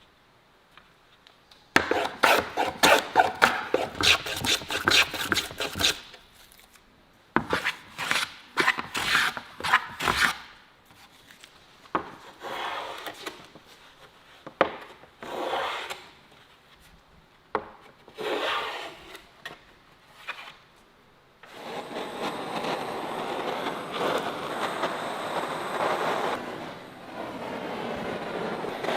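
Rapid strokes of a hand tool rubbing across wood, in runs of several seconds with pauses between them. From about two-thirds of the way through, a steady rushing noise takes over and continues.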